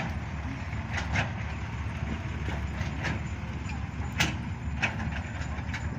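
Excavator's diesel engine running steadily with a low drone, with a few sharp knocks scattered through it, the loudest just after four seconds.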